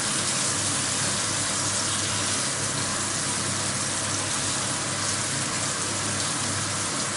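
Diced guanciale sizzling steadily as it browns in a frying pan over a gas flame, stirred in the pan, with a low steady hum underneath.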